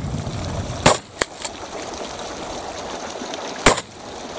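Two shotgun shots about three seconds apart, each a single sharp blast, fired at a coot on the water.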